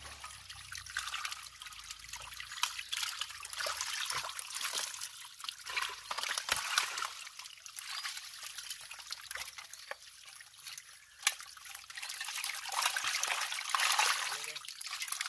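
Shallow muddy water splashing and squelching as hands and a plastic basket scoop through a dense mass of wriggling stinging catfish, with a busy patter of small splashes, a sharp tap about eleven seconds in and a louder splashy stretch near the end.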